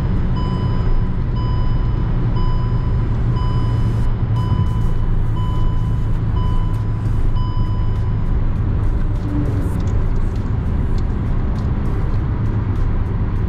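Steady in-cabin drone of the Hyundai i20's petrol engine and tyres at highway speed. Over it a dashboard warning chime beeps about once a second and stops about seven seconds in: the overspeed alert that sounds above 120 km/h.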